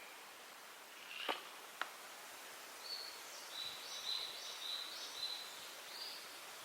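A songbird singing a run of short high whistled notes over faint outdoor background hiss. Two sharp snaps come about a second in.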